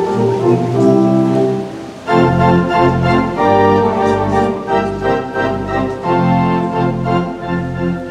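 Wurlitzer theatre pipe organ, over 90 years old, playing held chords. About two seconds in, fuller chords with a deep bass come in.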